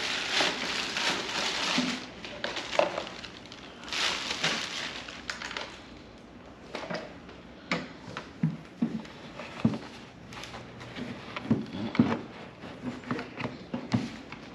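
Plastic bag crinkling as a subwoofer is pulled out of its wrapping, with a second burst of crinkling about four seconds in. Then scattered knocks and taps as the subwoofer is set down into the round cutout of a speaker box and shifted to test the fit.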